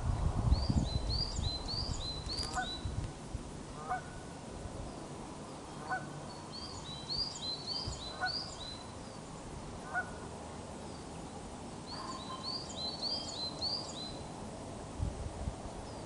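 Osprey calling: three bursts of rapid, high whistled notes, each about two seconds long, with a shorter, lower call repeating about every two seconds in between. Wind rumbles on the microphone near the start.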